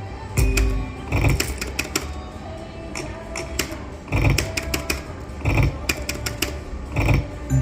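Video slot machine's electronic sounds: game music with clicking and a low thump each time the reels stop, about five times.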